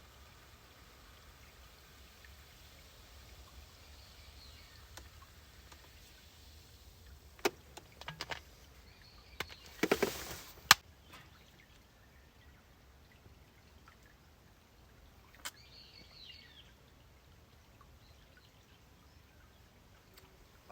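Quiet outdoor ambience with faint bird calls, broken about halfway through by a few sharp knocks and a short rustling burst.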